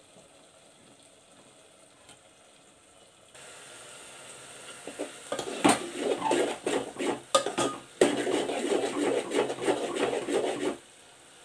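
A spoon stirring thick okra and tomato masala in a metal pot, scraping and knocking against the pot's sides with sharp clinks. It starts about five seconds in and stops shortly before the end, after a quiet opening.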